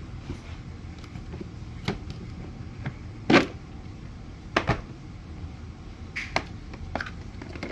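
Scattered knocks and clicks of vacuum cleaner parts being handled and fitted together, about eight in all, the loudest about three and a half seconds in.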